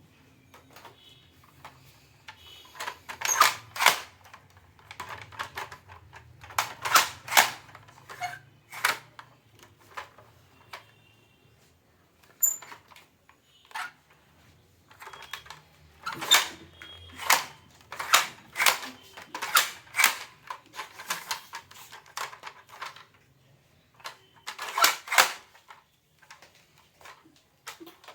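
Plastic toy guns clicking and snapping: quick clusters of sharp clicks, like a trigger or cocking mechanism being worked, with short pauses between clusters.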